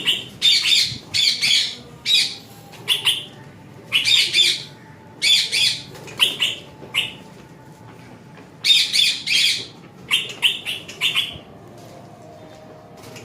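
Parrots giving harsh, repeated squawking calls, a dozen or so short bursts with brief pauses between groups, while one is being chased to be caught.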